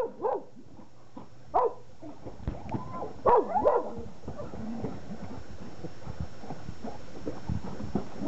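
Entlebucher Mountain Dog giving short, excited barks and yelps while swimming, loudest in a quick cluster about three seconds in, over splashing water.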